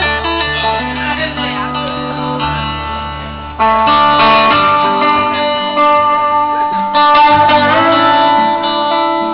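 Live blues band playing an instrumental intro: a slide guitar played flat on the lap over a second electric guitar, with gliding slide notes. The music gets louder about three and a half seconds in.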